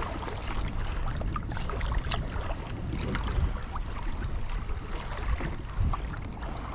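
Wind rumbling on the microphone and water lapping against a drifting boat, with a few light clicks.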